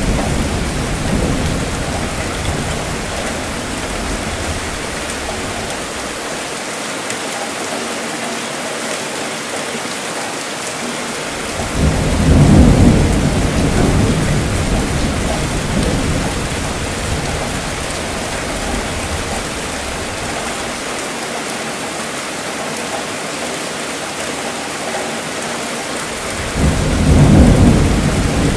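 Steady rainfall with rumbling thunder. One rumble fades out at the start, then two more rumbles swell up and die away, about twelve seconds in and near the end.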